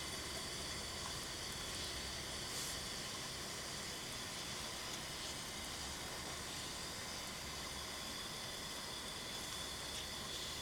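Steady, even hiss of a room fan heater running, with no distinct events.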